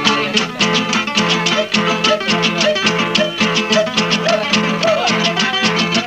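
Instrumental break of an Andean folk song: the ensemble plays on with a quick, steady beat between sung verses.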